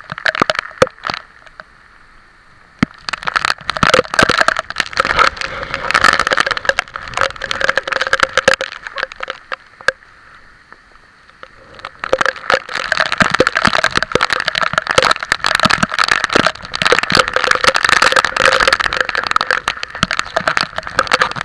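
Heavy typhoon rain and gusting wind hitting the camera's microphone: a dense crackle that comes in surges, easing off briefly about two seconds in and again around ten seconds in.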